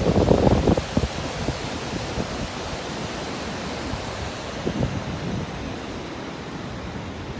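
Steady rush of the Gullfoss waterfall, a large two-tier fall of the Hvítá river, heard as an even roar of falling water.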